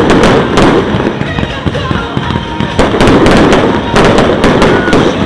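Fireworks going off: a loud, rapid string of bangs and crackles, several close together at a time.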